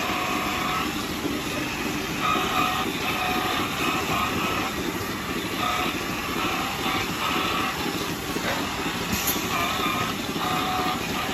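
Steady machinery noise of a milking parlour, with the whine of a handheld rotating teat-cleaning brush cutting in and out again and again as it is worked from teat to teat, spraying water.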